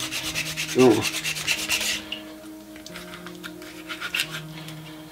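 A knife blade scraping quickly along the skin of a whole fish, scaling it. The strokes come fast and hard for the first two seconds, then lighter and further apart.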